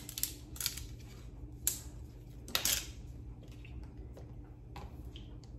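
Green plastic measuring spoons on a ring clicking and clattering as they are handled: a handful of separate light clacks, one a little longer, about halfway through.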